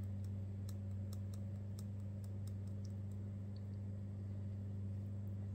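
Faint, irregular light clicks of a handheld sifter as black glass powder is sifted over a stencil, thinning out past the middle, over a steady low electrical hum.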